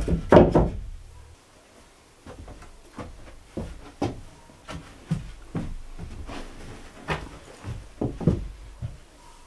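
Wooden boards knocking as they are set down onto a wooden bench frame, loudest in the first second. Then scattered lighter knocks and handling sounds as a cloth blanket is spread over the bench and someone sits down on it.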